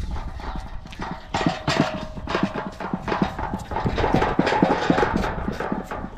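Quick, irregular pats and taps of hands flattening acorn-flour dough rounds on a large metal griddle tray.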